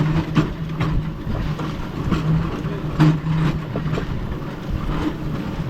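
Rail bike's steel wheels rolling along railroad track: a steady rumble with a humming drone that swells and fades, and irregular clicks and clacks.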